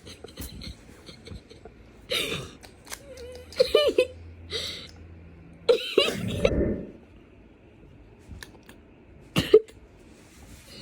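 A child's voice making a string of short, squeaky non-word vocal noises, about five separate bursts with sliding pitch and a few soft clicks between them.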